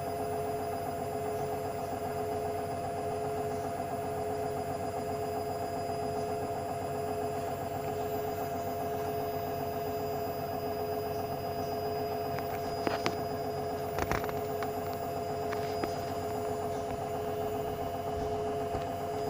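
Hoover washing machine running between rinses, a steady motor whine with a constant two-note hum over a whirring bed, and a couple of short knocks about two-thirds of the way through.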